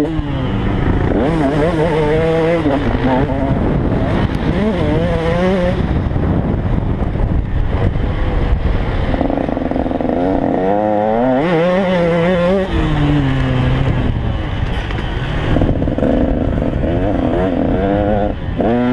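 KTM 150 XC two-stroke motocross engine under riding load, the revs climbing and dropping again and again as the throttle is worked and gears change.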